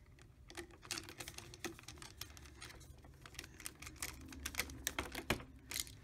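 Irregular light clicks and taps from handling stiff copper wires and a plastic light switch while the wires are bent into shape for its screw terminals.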